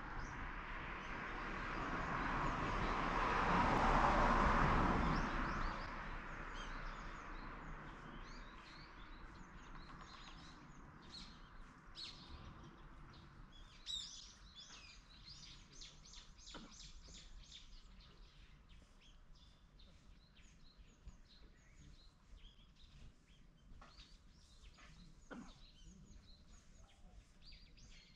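A broad rush of noise swells and fades over the first several seconds, then small birds chirp and call, with many short, high notes.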